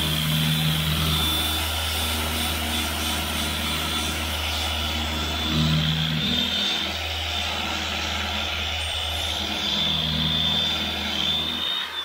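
Corded Porter-Cable angle grinder with a 180-grit sanding disc running steadily with a high whine as it sands the painted steel edges of a pickup bed. Near the end it is switched off and the whine falls away as the disc spins down.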